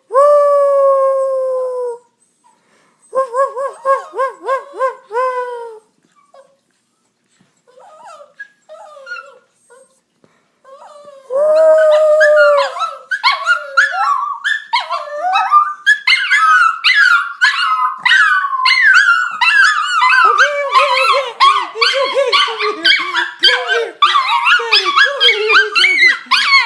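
Two dogs howling. It starts with a long held howl and a run of short yipping howls, then after a pause builds into a continuous chorus of overlapping, wavering howls from about halfway on.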